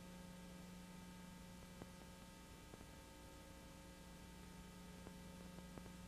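Near silence: a faint steady electrical hum under light hiss, with a few faint clicks.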